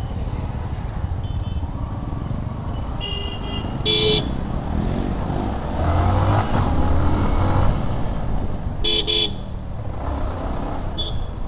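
Road traffic heard from a moving motorcycle: a steady engine and road rumble that grows louder for a couple of seconds midway. Short vehicle horn honks come about three and four seconds in, then a quick double honk near the end.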